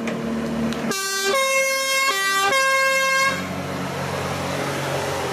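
Two-tone emergency siren on a fire-brigade forklift, starting about a second in and alternating low and high notes twice before stopping after about two seconds. Under it, the forklift's engine hums steadily.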